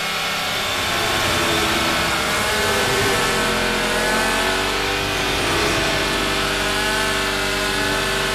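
Engine sound effect standing in for two cartoon ladybirds flying at racing speed: a loud, steady engine note that starts suddenly and cuts off suddenly at the end.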